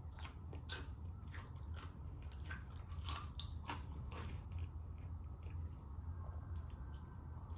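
A person chewing and crunching food close to the microphone, with wet clicks and mouth sounds over a steady low hum. The crunching thins out about halfway, leaving only a few clicks near the end.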